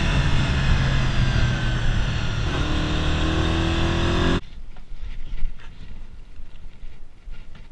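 Honda GB250 single-cylinder four-stroke motorcycle engine running as the bike slows, its pitch falling, with a step up in pitch about two and a half seconds in. The engine sound cuts off abruptly about four and a half seconds in, leaving only faint clicks and rustles.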